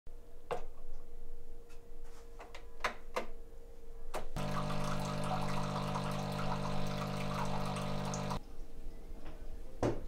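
A few sharp clicks, then a coffee machine's pump hums steadily for about four seconds as coffee streams into the cup, stopping abruptly; another click comes near the end.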